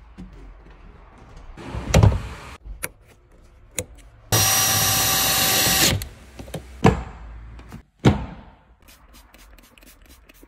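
Cordless drill running in one steady burst of about a second and a half, driving a seat-rail bolt. Before it there is a heavy thump, and after it two sharp knocks.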